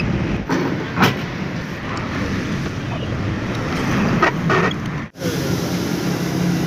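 Metal clinks of a cross lug wrench against a car wheel's lug nuts as the wheel is worked on, the sharpest clink about a second in, over a steady background hum of vehicle traffic.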